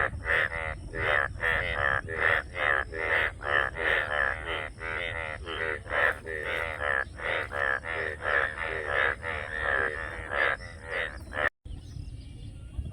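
Frogs calling, a fast run of short repeated croaks about two or three a second. The calls cut off abruptly near the end, leaving only faint scattered chirps.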